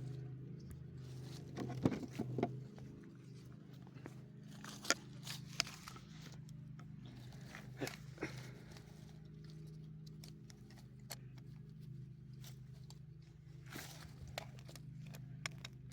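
Scattered light clicks, taps and scrapes of handling over a steady low hum.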